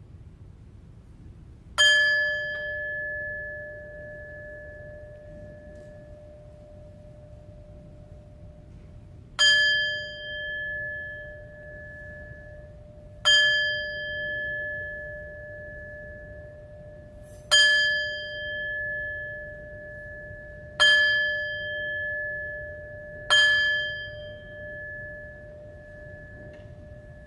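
A bell struck six times at uneven intervals, the same note each time, each strike ringing on for a second or two before fading.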